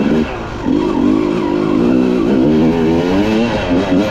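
Dirt bike engine being ridden, revving up and down as the throttle opens and closes, with a brief let-off about half a second in.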